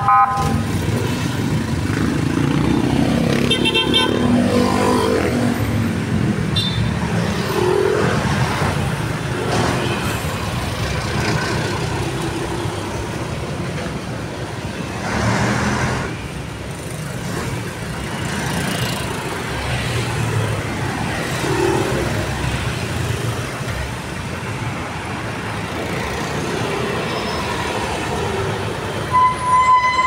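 Street traffic: cars, a pickup, a van and motorcycles driving past one after another, their engines and tyres swelling and fading as each goes by. A short horn toot sounds near the end.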